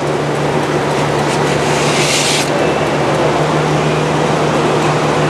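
Forrest Manufacturing 204P high-speed bandsaw running steadily, its 1-inch blade at about 3,000 feet per minute, with a steady low hum, finishing a cut through urethane tooling board. There is a brief hiss about two seconds in.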